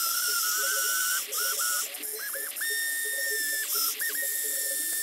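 Remote-control toy excavator's electric drive motors whining as it is driven over gravel, the whine stopping and restarting several times in short bursts, with a hiss of its gears and tracks over the loose stones.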